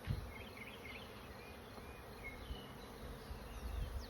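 Honeybees buzzing steadily around an open hive, with a low thump about a second in and faint high chirps in the background.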